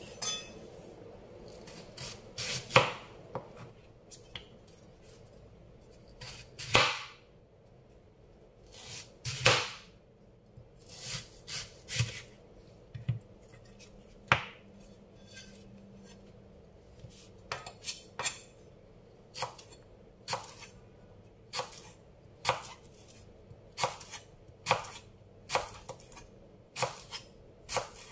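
Knife chopping unripe green mango: separate sharp chops, irregular at first, then settling into a steady pace of about one a second.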